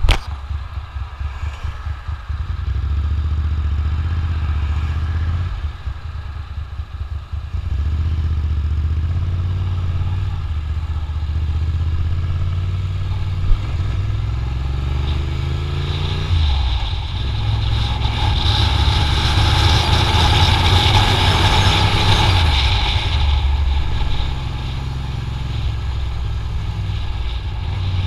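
Motorcycle engine running with wind rumbling on the microphone. About fifteen seconds in, the engine revs climb as the bike accelerates, and a rushing wind hiss then builds at speed.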